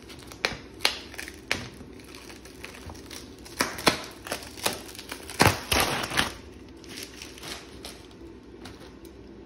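Adhesive vinyl stencil being peeled off a painted wooden clock face and crumpled up: irregular crackles and crinkles, thickest and loudest in the middle.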